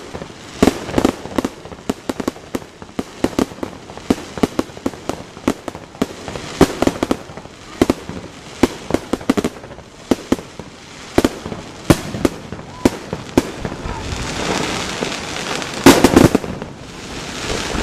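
Fireworks display: irregular sharp bangs of bursting shells, often several a second, thickening after about thirteen seconds into a dense crackling barrage with the loudest bangs near the end.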